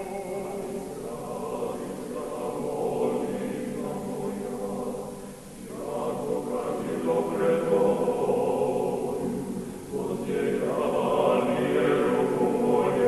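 Background music: a choir chanting in long, held phrases, with brief dips about five and a half seconds in and again near ten seconds.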